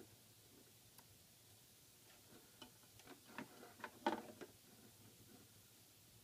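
Near silence, broken by faint scattered clicks and light taps, most of them bunched about three to four and a half seconds in: multimeter test probes being handled and pressed onto a guitar pickup's lead wires.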